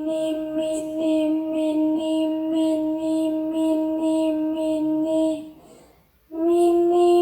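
A high-pitched voice chanting "mini mini mini" over and over on one held note, a couple of syllables a second. It breaks off briefly near the six-second mark, then starts again a little higher.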